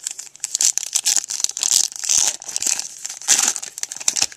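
Foil wrapper of a baseball card pack being torn open and crumpled by hand: a dense, uneven crinkling crackle.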